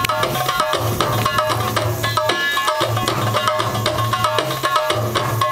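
Belly-dance music: hand drums (frame drums and tambourines) beating a fast, busy rhythm over a pitched melody and repeating low bass notes.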